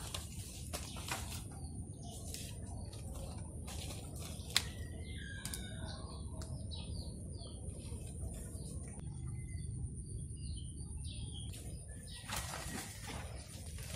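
Birds chirping now and then in short calls over a steady low rumble, with a single sharp click about four and a half seconds in and a brief rustle near the end.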